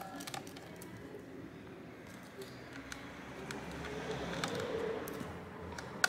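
Faint clicks and small scrapes of a precision screwdriver working the heatsink screws inside an opened laptop.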